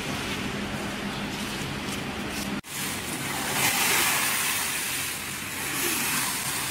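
Factory floor noise with a steady low hum. It drops out for an instant at a cut about two and a half seconds in, then returns as a louder hiss of plastic stretch film being pulled off the roll and wrapped around a machine.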